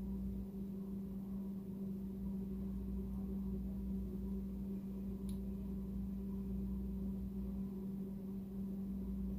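Steady low background hum of room tone, with a single faint click about five seconds in.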